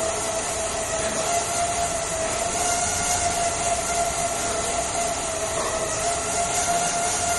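Exercise bike being pedalled steadily: an even whir with a constant humming tone that wavers slightly in pitch.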